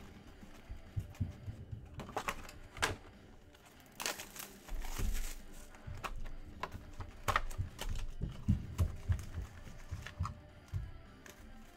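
Hands handling Panini Optic Football hobby boxes and wrapped card packs: cardboard and wrapper crinkling with scattered taps and knocks, and a longer rustle about four seconds in.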